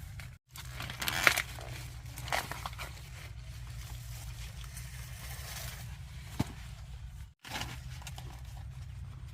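Dry corn leaves and husks rustling, with a few sharp snaps as ears of corn are broken off the stalks, over a steady low rumble. The sound cuts out briefly twice.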